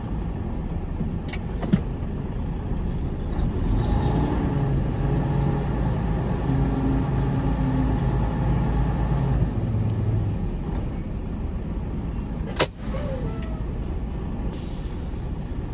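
Semi truck's diesel engine running under light load, heard inside the cab as the truck drives slowly, its hum growing stronger a few seconds in. A sharp click sounds once near the end.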